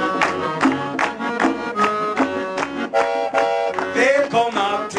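Accordion playing a lively tune over a steady conga beat.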